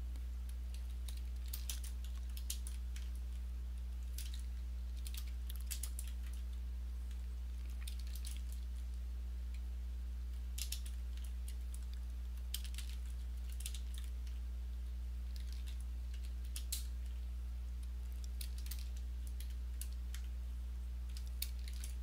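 Faint computer keyboard typing and clicks in scattered short bursts, over a steady low hum.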